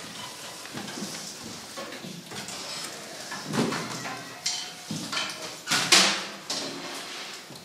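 Scattered clicks, knocks and rustling from a seated school wind band handling clarinets, saxophones, chairs and music stands before it starts playing, with no music sounding. The sharpest knock comes about six seconds in.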